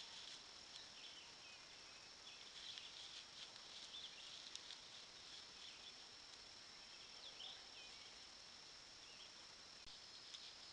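Faint evening insect chorus, a steady high-pitched drone, with a few faint bird chirps over it.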